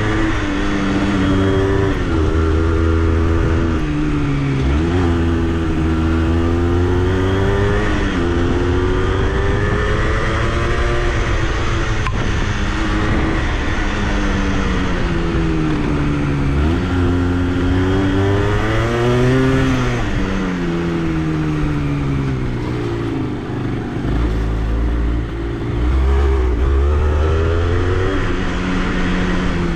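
Honda CRM80's two-stroke single-cylinder engine under way, its pitch climbing as the throttle opens and dropping back again and again, with sudden drops between climbs.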